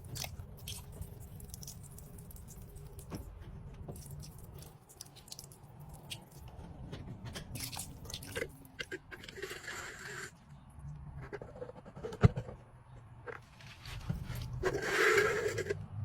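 Handling noises from work on a washing machine's drain pump: scattered clicks and scrapes of hands and tools on plastic parts, with one sharp knock about twelve seconds in.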